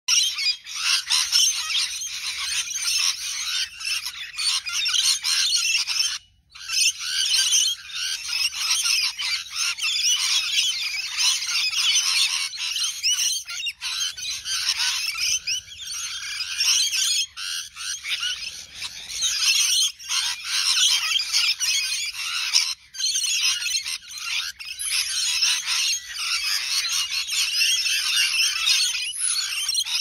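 A flock of rainbow lorikeets chattering and screeching all at once, a dense high-pitched din, with two brief gaps.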